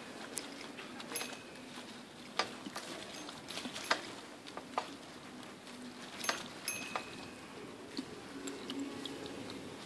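Quiet courtyard ambience: a faint steady hum under irregular sharp clicks and taps, with a couple of brief high chirps.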